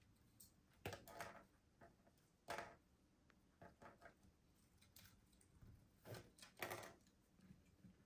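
Green-cheeked conure foraging on wooden toys: a handful of short, faint clicks and rustles as its beak and feet knock and pick at the wood and paper.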